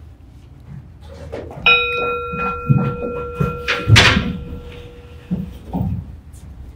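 A single bell-like ding that starts suddenly and rings on for about three and a half seconds, its higher notes stopping first. About two seconds into the ring comes a loud thump, with a few softer thuds around it.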